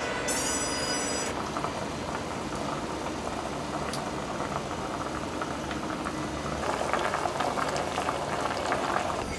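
Pork belly simmering in a pot of braising broth, bubbling steadily, with the bubbling busiest in the last few seconds.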